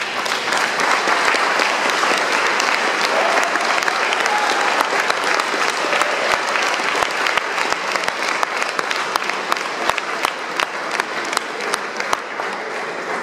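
Audience applauding, thick at first, then thinning out in the last few seconds so that single claps stand out.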